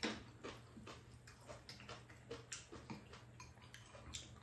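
Metal spoon and chopsticks clicking and scraping against ceramic bowls during a meal: light, irregular ticks, the sharpest right at the start.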